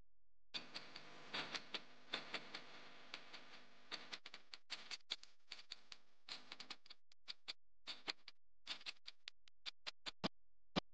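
Crackle and unevenly spaced clicks of a film-leader countdown sound effect. They are dense for the first few seconds, then thin out into separate clicks, with the sharpest click near the end.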